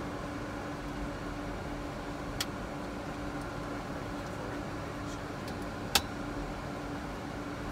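Steady airliner flight-deck noise on the ground after landing: a constant hum of engines and air conditioning with one steady low tone. Two sharp clicks cut through it, a light one about two and a half seconds in and a louder one about six seconds in.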